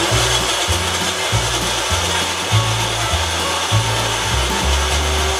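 Electric mixer grinder running at speed, its motor and blade whirring through a thick paste of cooked tomatoes and spices ground without water. It starts abruptly.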